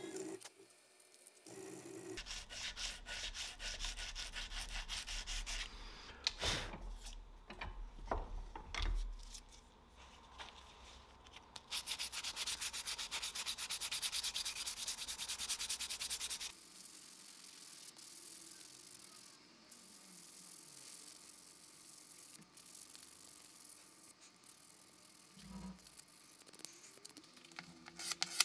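Hand sanding: rapid back-and-forth abrasive rubbing strokes, in bouts with quieter stretches between, starting up again near the end.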